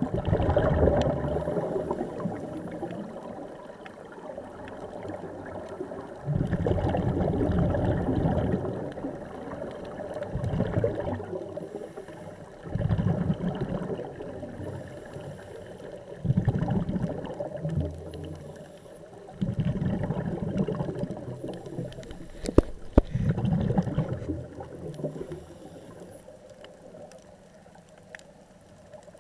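Scuba regulator exhalation bubbles gurgling past the underwater camera in bursts every three to four seconds, with a quieter watery hiss between them. There are two sharp clicks about two-thirds of the way through.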